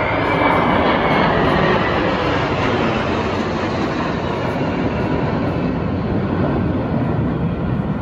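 Jet engines of a formation flypast overhead, a large four-engine transport jet flanked by four fighter jets: a steady loud roar that is strongest about a second in and slowly eases.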